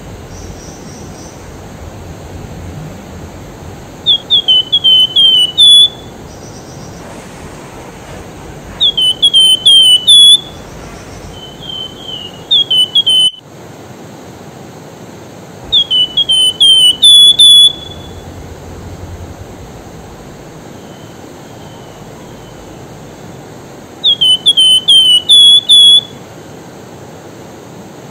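Wergan jawa (flamboyan) songbird singing five loud phrases, each a quick run of four or five down-slurred whistles ending on a held note, with pauses of a few seconds between phrases.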